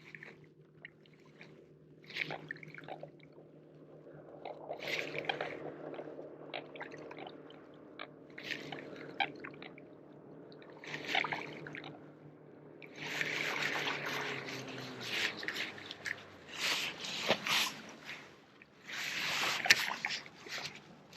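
Water dripping and splashing in short bursts that grow denser and louder over the last third, over a steady low hum that winds down and stops about two-thirds of the way in.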